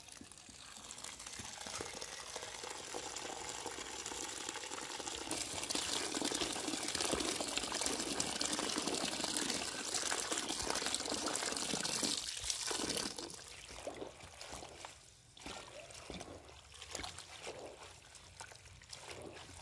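Water running from a tap onto leafy greens in a steel bowl, growing stronger about five seconds in. After about thirteen seconds the flow eases off and hands work the wet leaves in the bowl in a series of uneven swishes and splashes.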